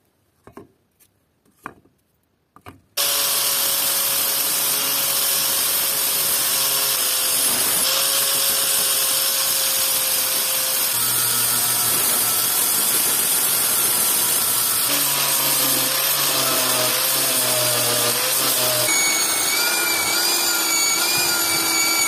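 A few light clicks, then about three seconds in an angle grinder with a flap disc starts grinding rust off a steel axe head: a loud, steady grinding with a whine whose pitch shifts a few times.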